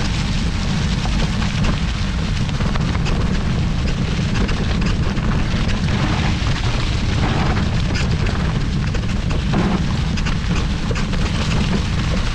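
Wind buffeting a GoPro's microphone in a steady low rumble as a mountain bike rolls along a trail, with tyres crackling over dry fallen leaves.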